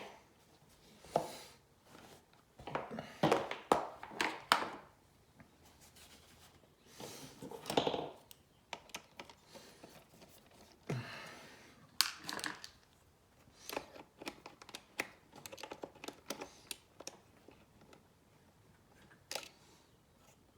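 Irregular clicks, knocks and rustles of hands handling and taking apart a Tascam Porta One cassette four-track recorder, with short bursts of activity and brief pauses between them.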